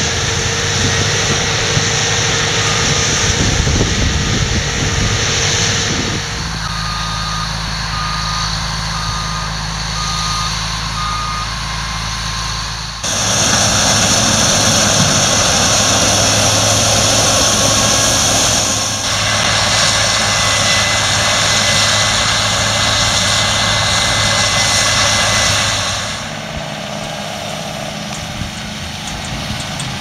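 Harvest machinery running: a Case IH 8010 combine harvester and tractor engines droning, the sound changing abruptly several times. In the first half a machine's warning beeper sounds a run of evenly spaced beeps, a little over one a second.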